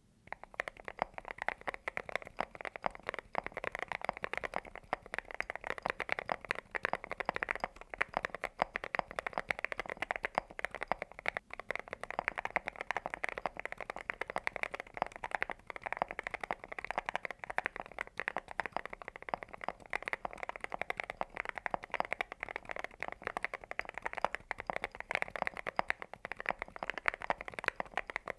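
Continuous fast typing on a mechanical keyboard fitted with Cerakey ceramic keycaps, a dense run of crisp clacks with no pause.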